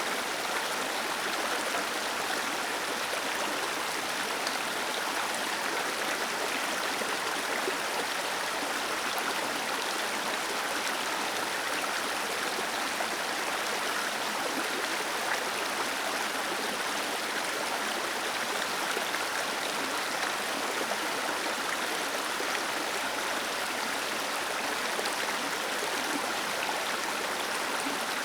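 Small waterfall cascading steadily, a constant rushing splash of water with no let-up.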